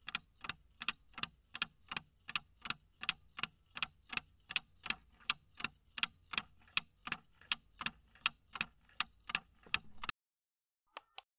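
Clock-ticking sound effect keeping time with a ten-second answer countdown, sharp even ticks about three a second. The ticking stops about ten seconds in, and two short clicks follow near the end.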